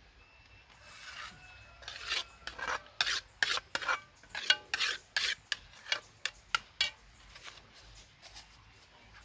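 A metal spoon scraping salsa out of a small black frying pan: a run of short scrapes, about two a second, some with a brief metallic ring, growing lighter near the end.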